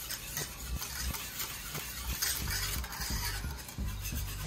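A wire whisk beating a thick custard mixture in a stainless steel saucepan, its wires scraping and clinking against the side and bottom of the pan in repeated strokes.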